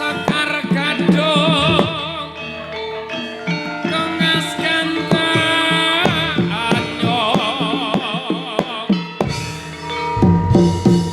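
Javanese gamelan playing a gending: layered metallophone tones over repeated kendang drum strokes, with a wavering melodic line weaving above. The low drum strokes come through more strongly near the end.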